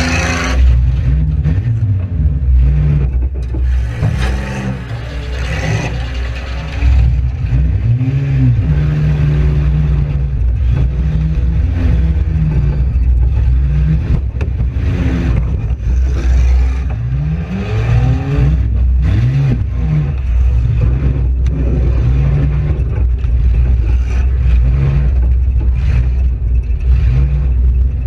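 Front-wheel-drive demolition derby car's engine revving up and falling back over and over, with sharp knocks and metal scraping and rattling from the gutted car body.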